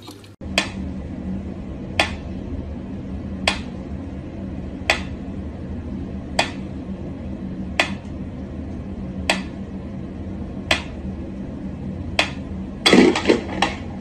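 Mechanical pendulum metronome ticking slowly and evenly, about one tick every second and a half, over a steady low hum. Near the end comes a brief clatter of louder knocks and scuffles as a cat scrambles away.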